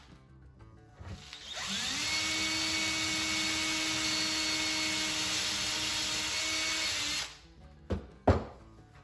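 Power drill with a 3/8-inch bit spinning up with a rising whine and running steadily as it bores through wood, then stopping about seven seconds in. Two sharp knocks follow near the end.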